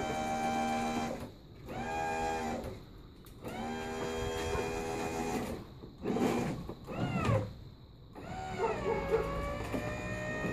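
The electric hydraulic pump motor of a 1971 Oldsmobile Cutlass convertible top, newly replaced, whines as it drives the top down. It stops and restarts about four times with short pauses, rising in pitch as it spins up at each start. Near the end the pitch sags and then climbs slowly.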